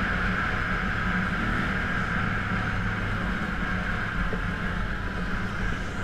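Can-Am Outlander ATV engine running steadily at riding speed along a dirt track, with a steady rushing noise over it and no change in speed or revs.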